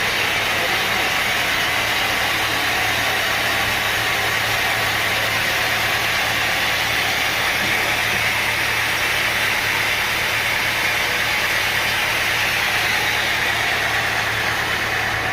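Sawmill machinery running steadily: a continuous mechanical noise with a constant low hum underneath.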